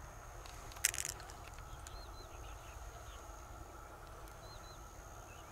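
A short crunchy scrape and clicks about a second in as a knife works pearls out of the flesh and shell of a freshwater mussel, over a steady high insect tone.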